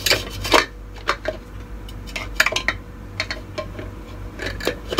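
Parts of a manual multi-chopper being fitted together: hard plastic lid and blade assembly clicking and knocking against the clear plastic bowl in a series of irregular clicks and clatters.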